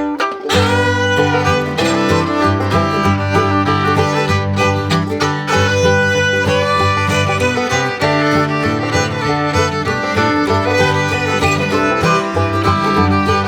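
Background music with a moving bass line and many instruments playing together.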